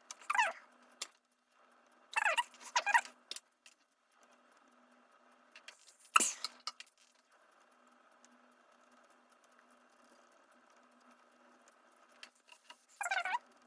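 Short squeaky rubbing strokes of a cleaning cloth wiped hard over a smooth surface, cleaning off old thermal paste, in a few bursts: one near the start, a pair around two to three seconds in, and one near the end. A single sharp click comes about six seconds in.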